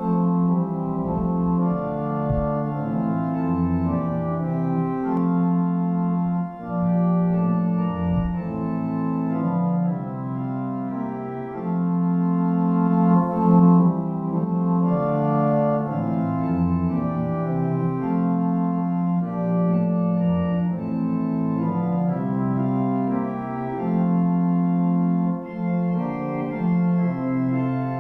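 Church organ playing slow music in held chords that change every second or two, with low bass notes underneath.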